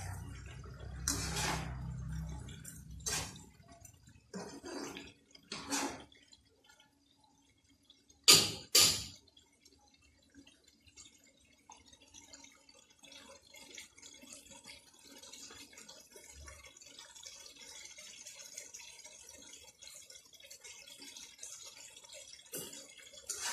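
A metal fork scrapes and stirs chicken and potato curry in a non-stick wok for the first few seconds. Two sharp knocks come about 8 seconds in. The curry sauce then bubbles faintly as it simmers on the gas flame.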